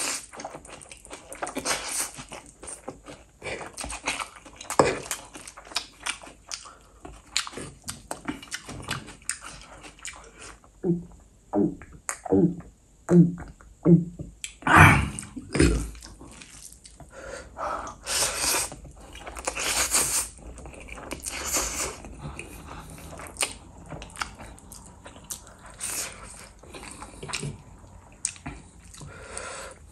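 Close-miked eating of Korean fire noodles: steady wet chewing, smacking and slurping. About a third of the way in there is a quick run of about six short, evenly spaced pitched sounds, and after that come several louder slurps.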